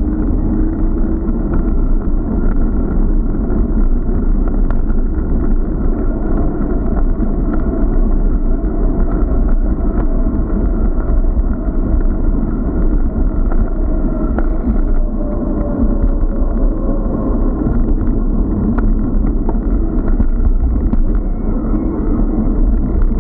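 Steady wind noise and rumble on the microphone of an action camera carried on a moving bicycle, with a few faint clicks.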